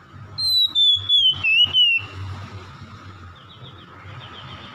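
Oriental magpie-robin singing: one loud, wavering whistle that slides down in pitch over about a second and a half, broken by a few sharp clicks. Faint rapid chirps follow near the end.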